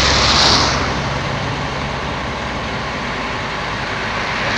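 Steady mechanical noise of a running engine or machine, with a short hiss near the start; a low hum fades out about a second in.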